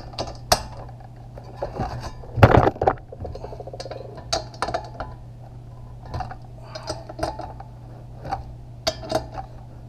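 Hand socket ratchet clicking in short strokes and metal clinking against metal while bolts are tightened on an engine fan clutch and its fan blade, with one louder clank about two and a half seconds in. A steady low hum runs underneath.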